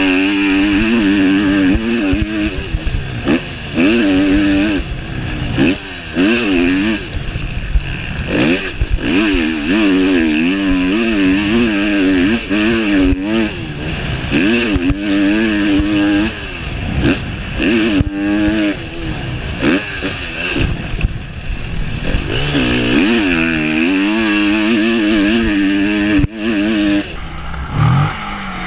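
KTM motocross bike engine, heard from on the bike, revving up and dropping off again and again as it accelerates, shifts and backs off around the track.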